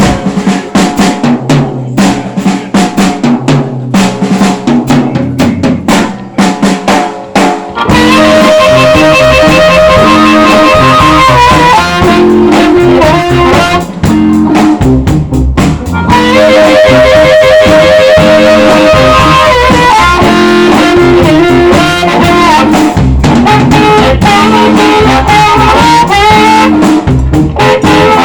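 Live blues band starting a tune. The first several seconds are a sparse opening led by drums and guitar. About eight seconds in, the full band comes in loud, with drum kit, bass, electric guitar and harmonica.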